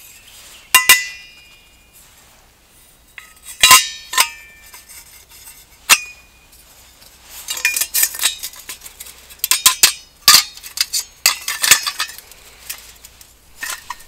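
Metal camp cookware clinking and clanking as it is handled: a few sharp strikes that ring briefly, then a quicker run of lighter clinks in the second half.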